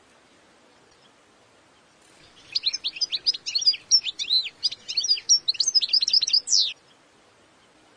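European goldfinch singing: one burst of rapid, high notes, a little over four seconds long, beginning a couple of seconds in.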